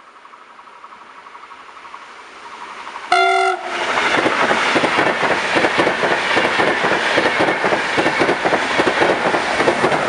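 An Intercity train with a DB Class 101 electric locomotive approaches and runs past at speed: a rising rumble, one short horn blast about three seconds in, then loud wheel and track noise with a rapid clatter of wheels on the rails that eases off near the end.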